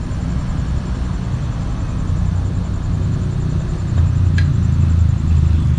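Small motorcycle being ridden: a steady low rumble of engine and road noise, growing louder about four seconds in.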